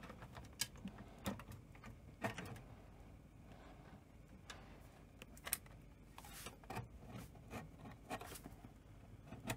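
Faint handling noise with scattered light clicks and knocks from the Sony SL-C9 Betamax's metal rear heatsink panel and its circuit board as they are eased out of the chassis on the panel's hinge.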